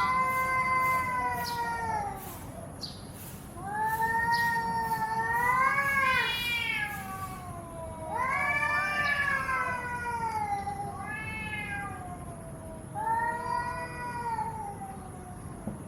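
Two domestic cats in a standoff, yowling at each other: about five long, wavering, drawn-out howls of one to three seconds each, rising and falling in pitch. These are the threat calls cats make just before a fight.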